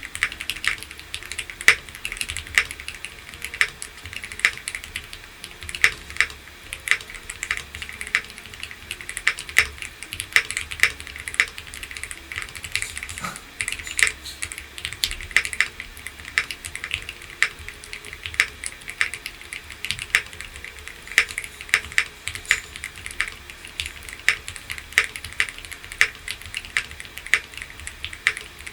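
Typing on a Bridge 75 mechanical keyboard: a quick, uneven run of key clicks at a few strokes a second, with no pause.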